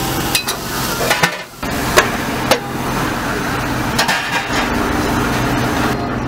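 Metal spatula clicking and scraping on a flat-top griddle, a few sharp strikes with the loudest about two seconds in, over steady sizzling and hum.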